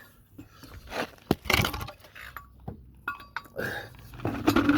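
Loose metal hardware clinking and clattering as it is handled: a few separate knocks with short metallic ringing, and the loudest clatter near the end.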